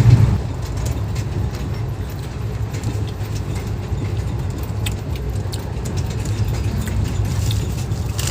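Steady low rumble of a moving passenger train heard from inside the coach, with scattered light clicks and rattles.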